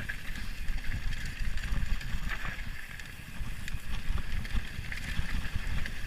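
Mountain bike riding fast down a loose gravel trail: tyres rumbling over the stones with the bike rattling, and wind buffeting the microphone.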